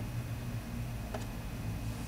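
Steady low hum with a single light click a little over a second in, from a screwdriver at work screwing a motherboard into a PC case.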